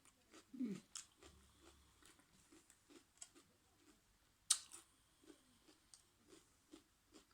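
Quiet mouth sounds of someone chewing a mouthful of prawn and raw vegetables, soft irregular chews a few times a second, with one sharp click about four and a half seconds in.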